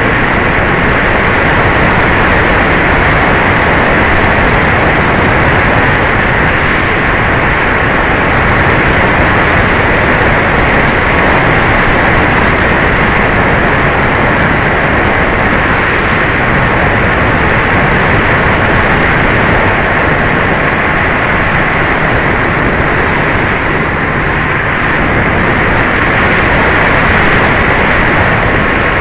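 E-flite Apprentice electric RC trainer plane in flight, heard from its onboard FPV gear: the motor and propeller run steadily under a loud rush of airflow, with a faint steady whine.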